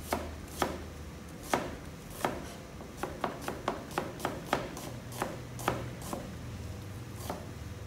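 Cleaver slicing an onion on a plastic cutting board: a run of sharp knocks as the blade meets the board, coming quicker in the middle and stopping shortly before the end.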